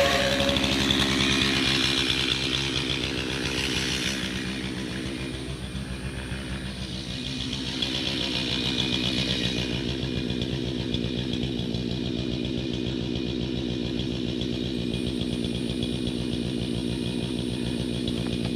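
An engine running steadily, its speed shifting a little partway through.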